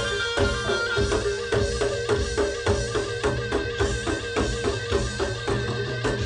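Javanese jaranan gamelan music: drums beating a steady rhythm of about four strokes a second over sustained ringing pitched tones.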